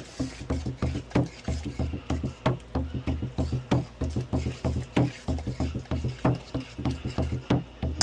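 A cooking utensil stirring shredded chicken filling in a pot, knocking and scraping against the pot several times a second.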